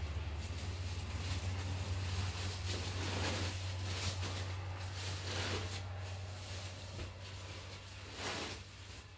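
Plastic tarp and cloth wrappings rustling as they are pulled about, shaken out and spread flat, in several separate swells, over a steady low hum that fades near the end.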